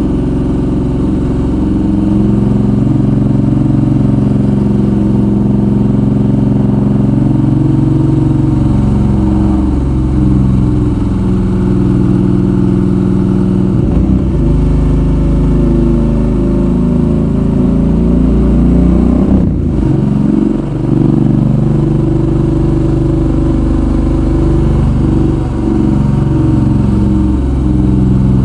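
Suzuki V-Strom 650's V-twin engine running under way, its pitch rising and falling with the throttle and dropping sharply at gear changes, about halfway through and again a few seconds later.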